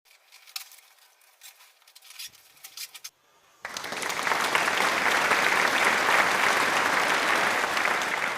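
A few faint clicks and rustles, then about three and a half seconds in a steady rushing noise starts: water running down a sewer riser pipe.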